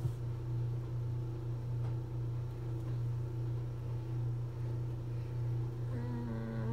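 Steady low hum of room machinery, with a single click at the start as a laptop key is tapped. Near the end comes a brief held vocal sound from a person.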